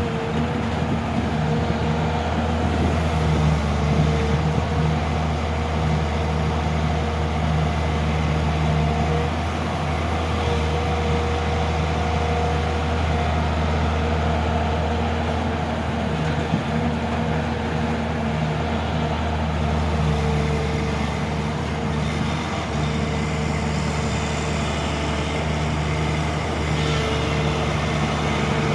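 Volvo excavator's diesel engine running steadily while it works, its note rising and falling slightly in strength as the load changes.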